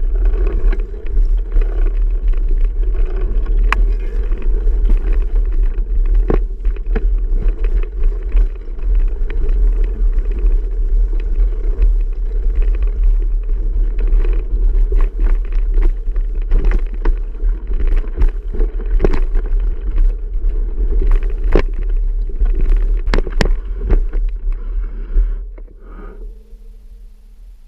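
Riding a bicycle over a trail: a steady low wind-and-road rumble on the microphone, with frequent sharp clicks and rattles from the bike. It drops away about two seconds before the end as the riding stops.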